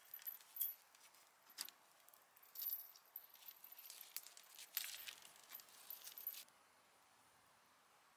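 Metal kettle and its hanger clinking and jangling as the kettle is hung and adjusted on a wooden tripod, in irregular short bursts that stop about six and a half seconds in.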